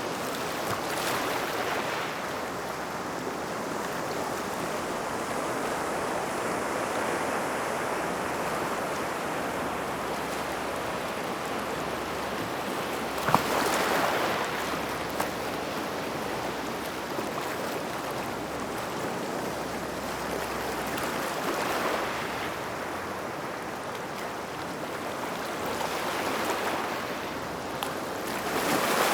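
Small waves washing in and out on a gravel shoreline: a continuous wash with several louder surges. The loudest comes about halfway through and starts with a sharp click.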